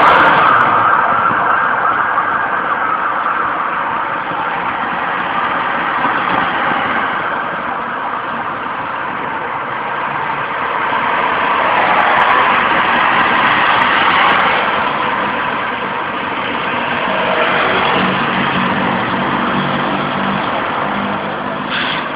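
Road vehicles passing, a steady engine and tyre rumble that swells about twelve seconds in and again about eighteen seconds in.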